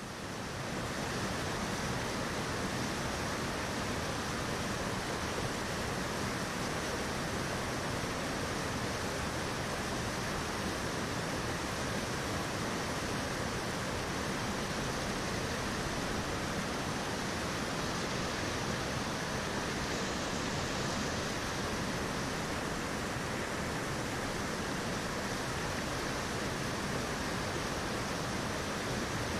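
Mountain torrent rushing over boulders through white-water rapids: a steady, even rush of water.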